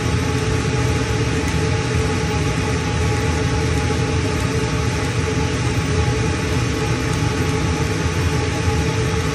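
60 W CO2 laser engraver running while it engraves wood: a steady machine hum under a constant airy rush, with no breaks or changes.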